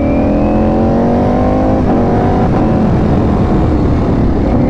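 Ducati Panigale V4 S's V4 engine accelerating hard, its pitch climbing with a short break about two seconds in as it shifts up, over a steady rush of wind.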